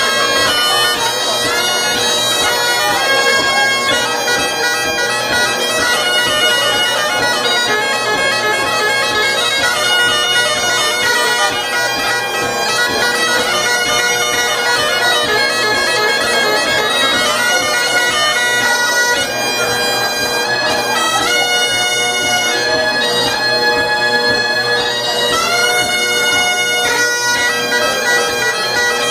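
Two sets of Great Highland bagpipes playing a lively tune together: a chanter melody with quickly changing notes over the steady hum of the drones.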